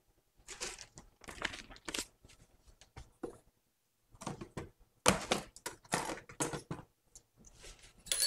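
Plastic piping bag crinkling and rustling in irregular bursts as it is handled and torn open, with short pauses between bursts.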